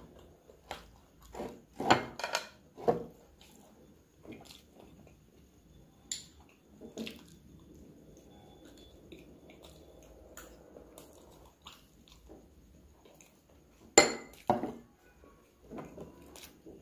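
Metal spoon clinking and scraping against glass and ceramic dishes, with sharp clinks about two seconds in and again near the end, and quiet chewing between them.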